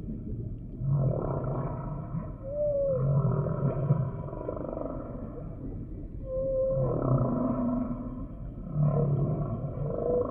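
Humpback whale song: a series of low moans alternating with short, arched higher cries that rise and fall in pitch, over a steady background hiss.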